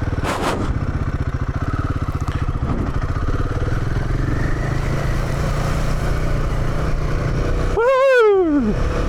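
Royal Enfield Himalayan 450's single-cylinder engine running steadily at low speed, its firing pulses even throughout. About eight seconds in, a short pitched sound rises and then falls over it.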